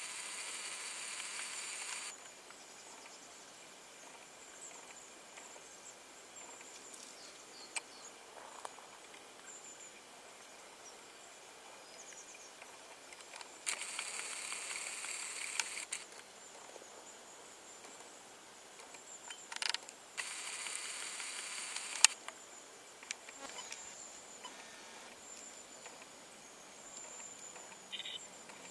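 A camcorder's zoom motor whirs in three short bursts of about two seconds each, the last ending with a sharp click. A faint, steady high-pitched whine lies underneath.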